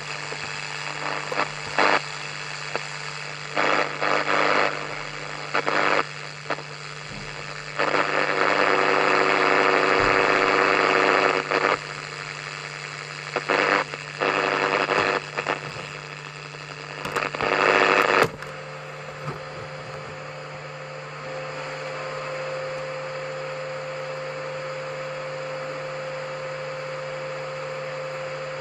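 A radio being tuned across the dial: irregular bursts of static come and go over a steady low hum, the longest and loudest a few seconds long near the first third. After about 18 seconds it settles into a steadier hiss with a faint steady tone, as between stations.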